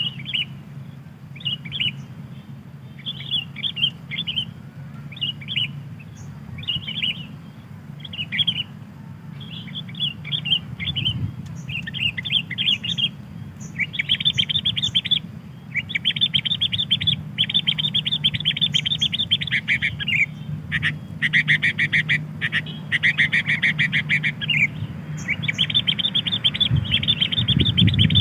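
Sooty-headed bulbuls (kutilang) calling: short chirping phrases at first, turning into near-continuous rapid chirping about halfway through, over a steady low hum.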